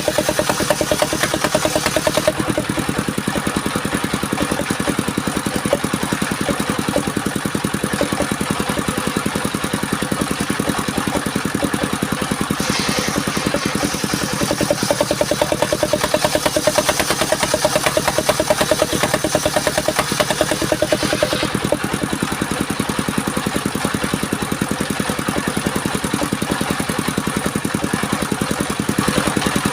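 Engine of a portable circular sawmill running steadily with an even pulsing beat. A higher hiss joins in for about eight seconds in the middle.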